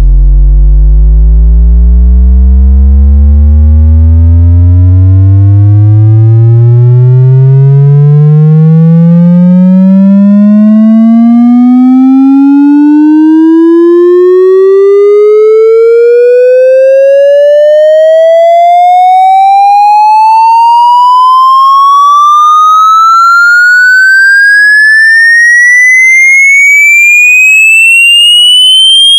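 Sound-check frequency sweep: a synthetic test tone with strong overtones, played very loud and rising steadily in pitch from a deep bass hum to a high whistle.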